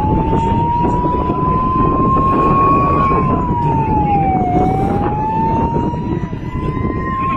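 A siren wailing. Its pitch climbs slowly for about three seconds, drops over a second and a half, then climbs again, over steady low background noise.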